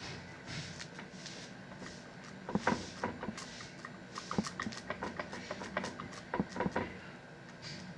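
Sticky clicks and smacks of warm panela and ginger candy being kneaded and stretched by hand. Sharp snaps come in small clusters, the loudest about two and a half, four and a half and six and a half seconds in.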